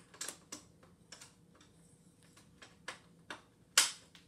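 Irregular small plastic clicks and taps from parts of a Shark IQ auto-empty base being handled, its exhaust filter and dust bin, with one sharper, louder click near the end.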